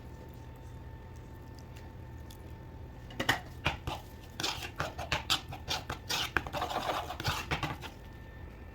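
Kitchen utensils being handled: a quick, irregular run of clicks, knocks and scrapes starting about three seconds in and lasting nearly five seconds, over a steady low hum.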